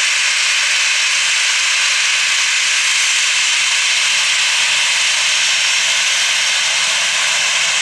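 Boeing 737-700's CFM56-7B turbofan engines running steadily, an even jet hiss with no change in pitch or level.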